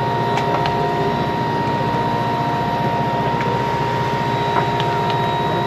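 Fishing boat's engines running, a steady drone with a constant whine on top, and a few faint light ticks.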